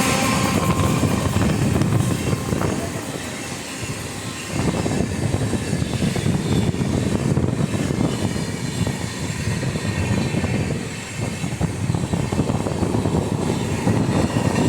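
A passenger train running past on the track: a steady, loud rumble of coaches and wheels, easing briefly about three to four seconds in and again around eleven seconds.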